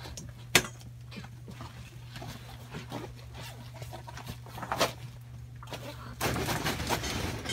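A grow tent's ceiling support bar being slid along the tent frame: one sharp clack about half a second in, a few light knocks, then a burst of rustling from the tent's reflective lining near the end, over a steady low hum.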